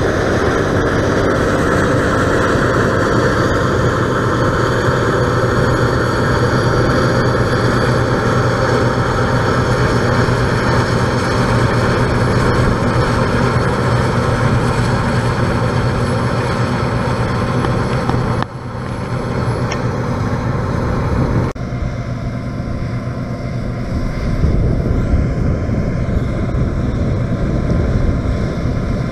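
Claas Lexion 670 TT combine harvester running steadily while harvesting barley, with a steady low hum under the machine noise. The sound cuts abruptly twice about two-thirds of the way through; afterwards it is duller, with more low rumble.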